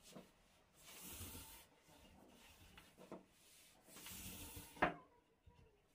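Two swishing, rubbing strokes of a thin rolling pin rolling out hand-made baklava pastry sheets, followed by one sharp tap near the end.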